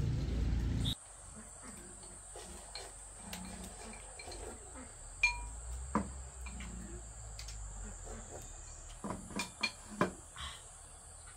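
Light clinks and knocks, a cluster of them near the end, over a steady high-pitched insect drone. A louder rushing noise cuts off suddenly about a second in.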